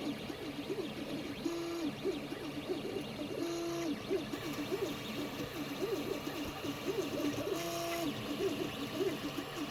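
3D printer's stepper motors whining as the print head darts about at high speed. The sound is a rapid run of short tones that rise and fall, broken three times by a longer steady tone.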